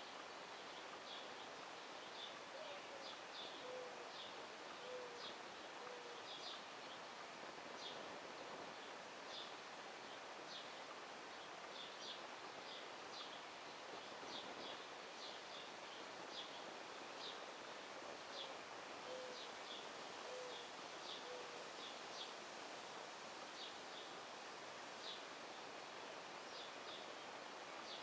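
A dove cooing in a phrase of four low coos, heard twice about fifteen seconds apart, while small birds give short high chirps about once a second throughout.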